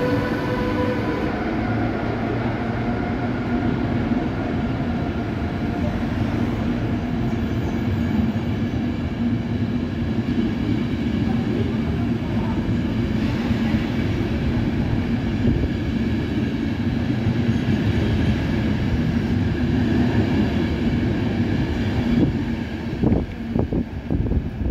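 Locomotive-hauled passenger coaches rolling past on the rails, a steady rumbling run of wheels and bogies. A set of steady electric tones from the locomotive fades out in the first second. There are a few low knocks near the end.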